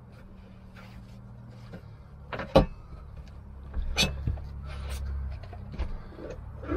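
Knocks and clatters of hands and tools being handled on a laminate floor inside a van. One sharp knock comes about two and a half seconds in and another about four seconds in, over a low steady hum.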